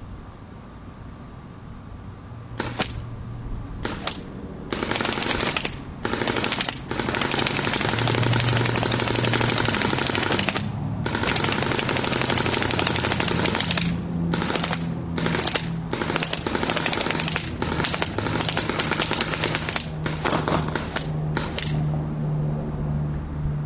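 Shocker NXT electro-pneumatic paintball marker firing rapid strings of shots, set to PSP mode at 12.5 balls per second. It fires in bursts of a second to several seconds with short gaps, starting about two and a half seconds in and stopping shortly before the end.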